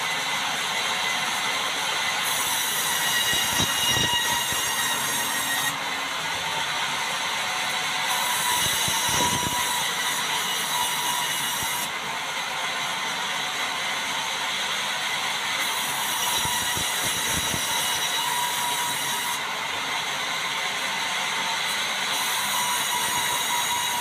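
Sawmill band saw cutting red meranti planks. The blade and drive run with a steady whine, and a hissing cutting noise comes and goes every few seconds as boards feed through the blade.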